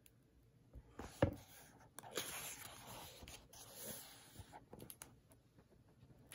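Paper pages of a book being handled and turned: a light tap about a second in, then soft rustling and sliding of paper under the hand for a couple of seconds.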